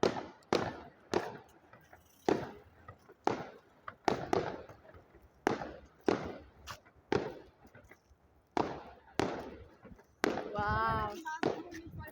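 Fireworks display going off: a string of about a dozen sharp bangs, roughly one every second, each trailing off in a fading rumble. Near the end a voice calls out in a long, wavering tone.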